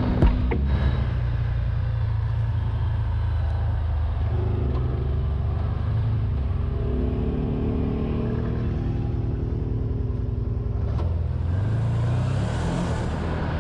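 Side-by-side UTV's engine running under way, heard from the driver's seat, with a steady low hum. In the middle the engine note rises and falls as the machine changes speed.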